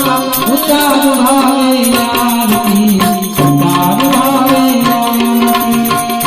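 Gujarati devotional aarti music: a harmonium melody over drums and percussion, with singing.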